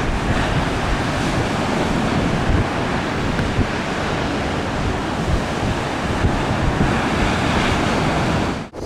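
Strong offshore wind buffeting the microphone over the steady roar of breaking ocean surf, with gusty low rumbles; the sound cuts off abruptly near the end.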